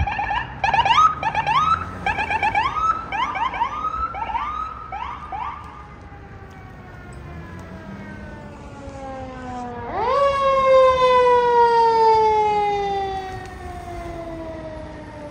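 An ambulance siren yelping in quick rising whoops, about three a second, fading out after five or six seconds. About ten seconds in, a fire engine's siren winds up sharply and then slowly falls in pitch as the engine approaches.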